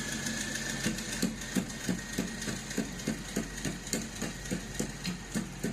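Food being prepared by hand: steady dull knocks, about three a second, starting about a second in, over a low steady hum.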